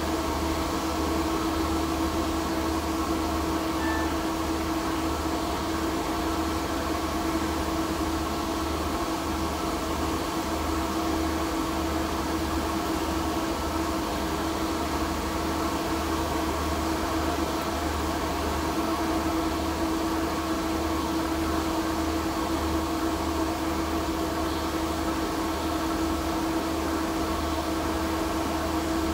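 Portable axial ventilation blower running steadily: a constant hum with a steady mid-pitched tone and a low rumble beneath it.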